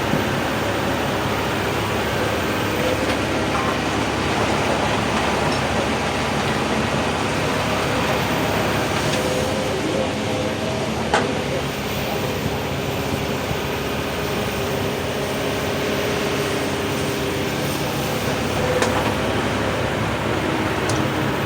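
Hydraulic excavator working, its diesel engine and hydraulics running steadily under load, with a sharp metallic knock about halfway through and a few fainter clanks near the end.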